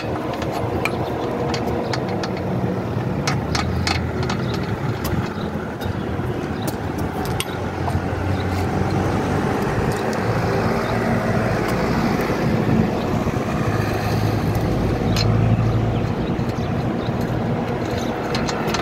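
An engine running steadily, somewhat louder through the middle of the stretch, with scattered light metallic clicks from a wrench working a hydraulic hose fitting.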